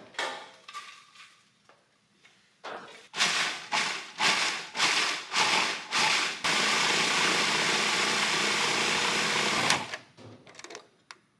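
Food processor grinding roasted sliced almonds into almond flour: it is pulsed in about half a dozen short bursts, then run continuously for about three seconds before stopping suddenly. A few light handling knocks come before it starts.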